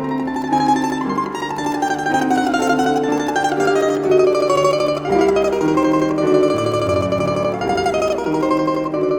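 Domra carrying the melody in quick tremolo picking over grand piano accompaniment; the melody line falls gradually over the first few seconds, then moves on in shorter phrases.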